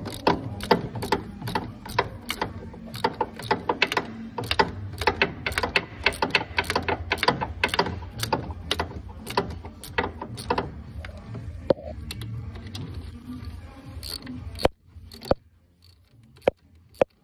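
Socket ratchet clicking as the alternator's mounting bolts are tightened: a steady run of clicks, about three a second, for the first ten seconds or so, then slower, scattered clicks, with a few single clicks near the end as the bolts come tight.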